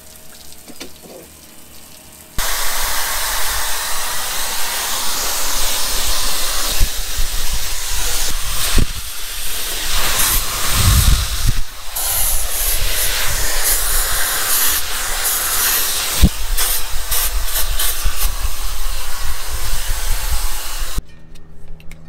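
Jellyfish handheld pet hair dryer blowing: a loud, steady rush of air that starts abruptly about two seconds in and cuts off just before the end, dipping briefly a couple of times as it works through a dog's wet fur.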